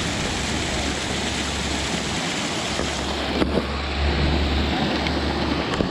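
Wind rumbling on the microphone over a steady rushing noise, with the low rumble dropping out briefly a couple of times.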